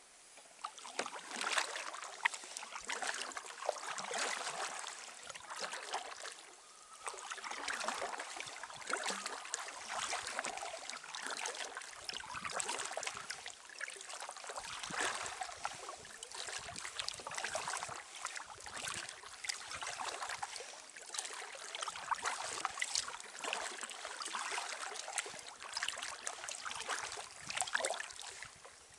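Kayak paddle strokes: the blades dip and splash into calm water, with water trickling off them, stroke after stroke in an uneven rhythm of a pulse every second or two, with a couple of short lulls.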